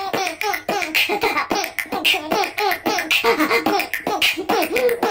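A person beatboxing through a voice changer: quick mouth-percussion clicks and pops mixed with pitched vocal sounds, several beats a second.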